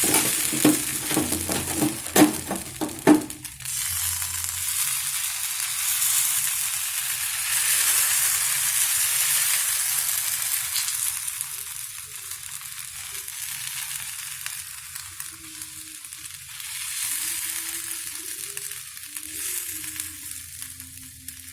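Thoothuvalai rice-dough rotti sizzling in sesame oil on a hot griddle as it is patted out thin, with a few sharp taps in the first three seconds. The sizzle is louder in the first half and eases off after about ten seconds.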